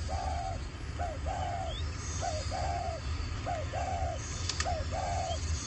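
A dove cooing in a steady series, each call a short rising note followed by a longer arching coo, repeated about five times at a little over one-second intervals. A single sharp click about four and a half seconds in.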